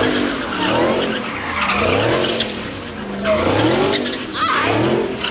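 Car engines revving up and dropping back about once a second, with tires squealing, as cars do donuts and burnouts.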